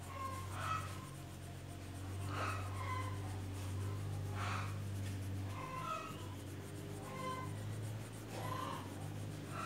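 Crayon rubbing back and forth on notebook paper in short scratchy colouring strokes, over a low steady hum.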